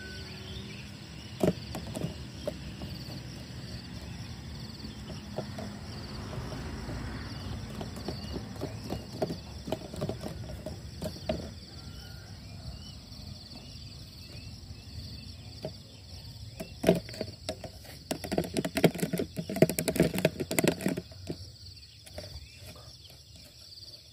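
Mountain dawn ambience: a faint steady insect chirring and a few bird chirps over a low rumble. In the last third comes a cluster of sharp clicks and rustles.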